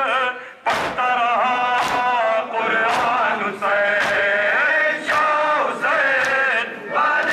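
Many men chanting a Shia mourning lament (noha) in unison, with a sharp slap of hands striking chests about once a second keeping the beat.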